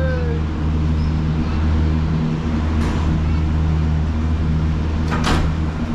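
Steady low mechanical drone, with a short noisy burst about five seconds in.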